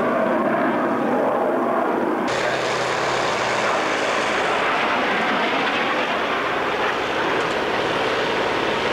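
Harrier jump jet flying past in a display, its Rolls-Royce Pegasus vectored-thrust turbofan a loud, steady rush of jet noise that turns sharper and hissier about two seconds in.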